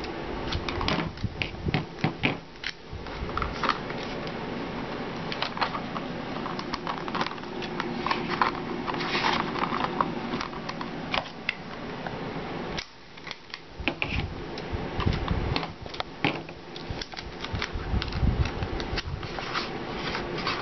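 Clear adhesive tape being handled and pressed onto folded cardboard: many small clicks, sticking noises and card rustles, over a steady low background hum.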